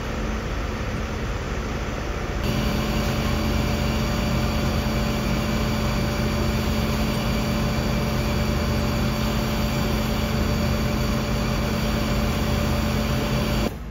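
Fire trucks' engines running steadily. About two and a half seconds in, the sound steps up to a louder, steady engine run with a clear hum, which cuts off abruptly near the end.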